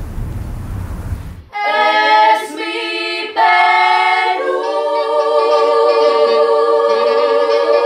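Unaccompanied choir singing in the soundtrack. It comes in suddenly about a second and a half in, after a hissing swell of the previous music, and settles into a long chord held with vibrato.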